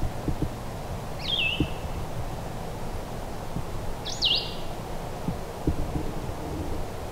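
A songbird gives two short, sharply slurred whistled calls, about a second in and again about four seconds in. Underneath are steady low background noise and scattered soft knocks and rustles.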